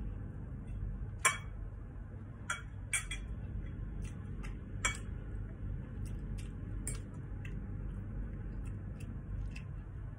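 Metal spoon and fork clinking and scraping against a ceramic plate while eating rice: light, irregular clinks, the sharpest about a second in. A steady low hum runs underneath.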